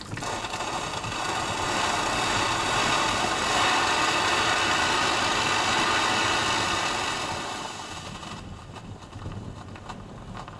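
Steam hissing hard out of an outlet in the side of a steamboat's hull while the boiler is under test. It builds over the first couple of seconds, holds loud, then dies down about eight seconds in.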